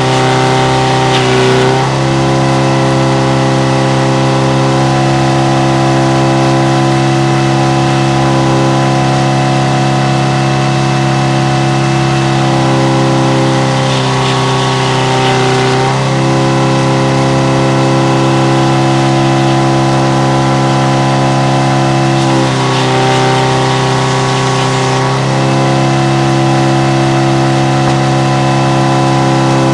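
Frick No. 00 circle sawmill running, a steady, even mechanical drone. Three times, near the start, about halfway through and about three quarters through, the drone shifts in pitch for a couple of seconds with added hiss.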